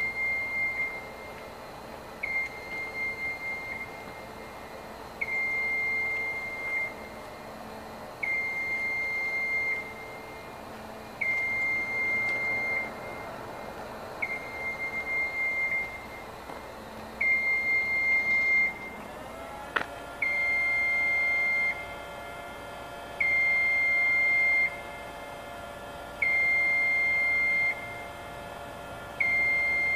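Genie Z-40/23N RJ boom lift's alarm beeping while the boom is lowered: one long, high beep about every three seconds. A little under two-thirds of the way through, a short rising whine leads into a steady hum of several tones that carries on under the beeps.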